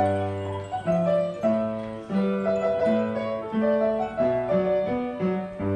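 Piano being played: a melody over a steadily moving bass line, with notes and chords changing in an even rhythm.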